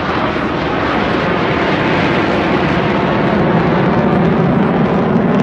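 Jet noise from an AMX ground-attack aircraft's single Rolls-Royce Spey turbofan as it flies high overhead: a steady rush that grows slightly louder and lower toward the end.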